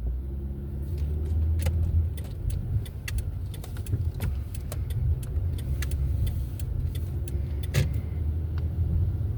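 Low, steady car engine and road rumble heard inside the cabin, with scattered small clicks and rattles throughout and one louder click near the end.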